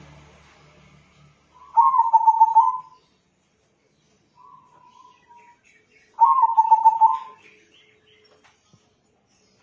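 Local crossbred zebra dove (perkutut) cooing: two loud rolling coos, each a quick run of notes, about a second and a half in and again about six seconds in, with a fainter, shorter coo between them.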